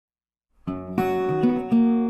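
Instrumental intro music with strummed guitar chords, starting about half a second in.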